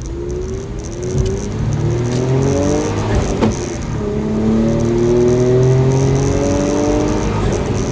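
Suzuki Carry turbo's K6A three-cylinder engine pulling under acceleration, its pitch climbing in two long stretches. There is a short break with a sharp click about three and a half seconds in.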